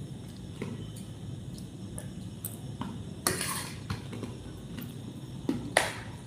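A metal spoon clinking against a plate of rice: a few separate light clinks and one short scrape, the loudest clink near the end.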